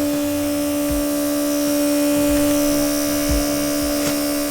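Small cordless airbrush air compressor running with a steady electric hum.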